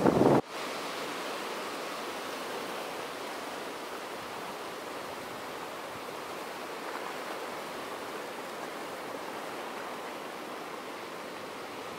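A louder rumbling noise cuts off suddenly about half a second in, leaving a steady, even rush of water.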